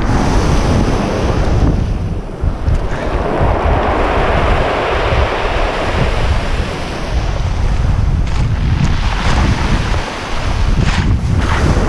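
Sea waves breaking and washing on the shore, with strong wind rumbling on the microphone. The wash swells loudest in the middle, then eases off.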